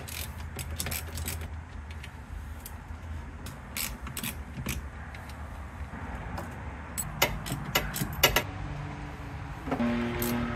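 Scattered light metallic clicks and clinks of tools and loose 12 mm nuts as the brake master cylinder's mounting nuts are undone and taken off, over a low steady hum. Near the end a steady drone comes in.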